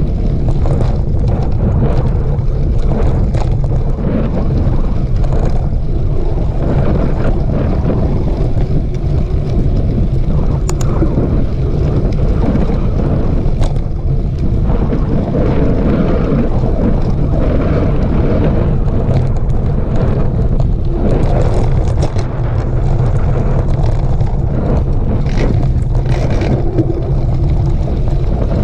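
Wind buffeting a camera microphone on a mountain bike ridden over a dirt trail: a steady low rumble with scattered clicks and rattles.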